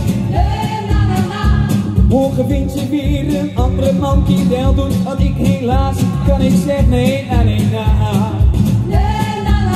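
A song with a steady beat playing over a sound system, a man singing into a microphone over the backing track.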